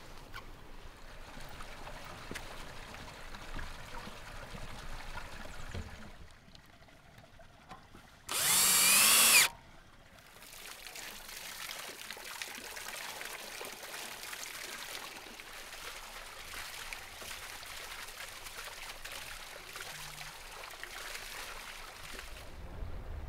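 Water pouring and splashing steadily from a stone channel onto a wooden water wheel that turns a fish rotisserie drum. About eight seconds in, a loud whirring burst with a rising pitch lasts about a second.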